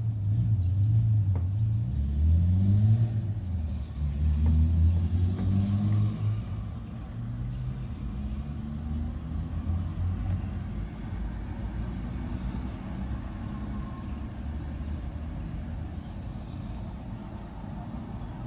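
Low rumble of a motor vehicle engine, loudest in the first six seconds with its pitch rising a couple of times, then settling into a quieter steady low hum.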